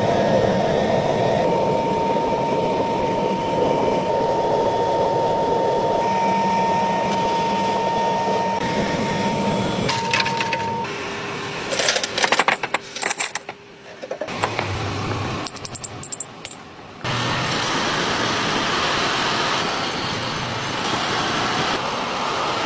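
Metalworking machine running steadily with a thin whine for about ten seconds, then a run of sharp metallic clicks and clinks, then the machine running again.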